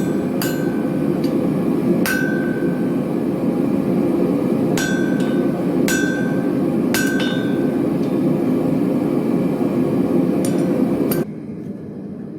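Several widely spaced single hammer blows on steel, each with a short metallic ring at the same pitch, over a steady rushing background noise. Near the end the background noise cuts off suddenly.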